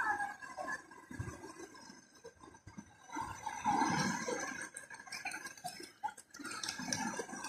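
Surf washing onto a beach, with children's distant shouts from about three seconds in.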